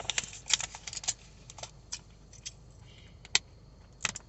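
Close-up eating sounds of crunchy fried chicken tenders: irregular crisp clicks and crackles as the breading is chewed, one louder crack about three and a half seconds in.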